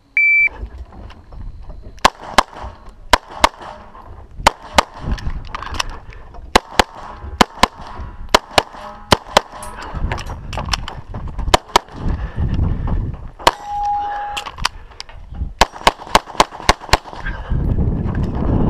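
A shot timer gives a short high start beep, then a pistol fires a USPSA stage string of about two dozen shots. The shots come mostly in quick pairs about a third of a second apart, with short pauses between pairs. A brief ringing tone follows one shot about fourteen seconds in.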